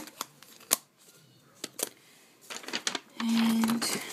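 Handling noise from a hand-held camera being moved about: a few sharp clicks and taps, then louder rubbing and rustling in the last second and a half, with a short steady hum about three seconds in.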